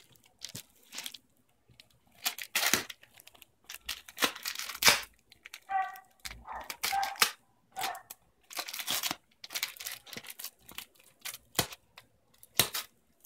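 Cardboard parcel being torn open by hand: packing tape and cardboard ripping in irregular bursts, with crinkling between the rips.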